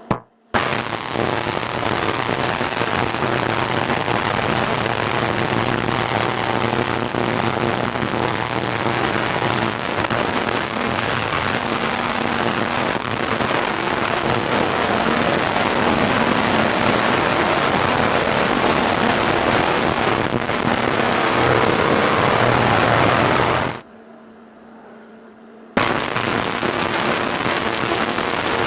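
Industrial ultrasonic cleaning tank running: a loud, steady hiss and crackle of cavitation in the liquid, over a low hum. It cuts out suddenly for about two seconds near the end, then comes back.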